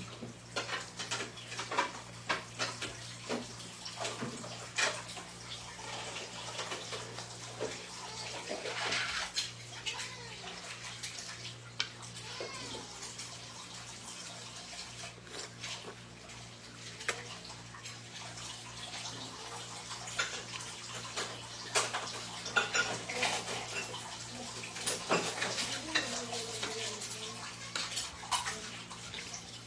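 Cutlery and dishes clinking and scraping, with many small irregular clicks throughout as people eat, over a steady low hum.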